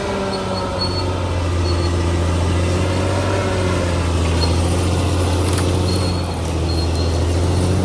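CAT D6R XL bulldozer's diesel engine running steadily and loudly under working load, its pitch wavering slightly. A few short metallic clanks come about five to six seconds in.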